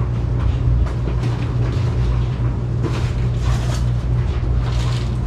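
Steady low droning hum from a running machine. Faint rustles and light knocks of parts and packaging being handled come a few times.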